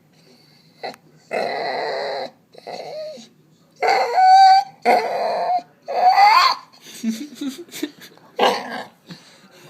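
A dog making a string of weird growly, whining vocal noises: about six separate loud bursts, some sliding upward in pitch.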